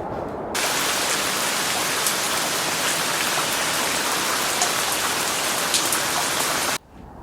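Steady rain falling, with scattered light drop ticks; it starts abruptly about half a second in and cuts off suddenly near the end.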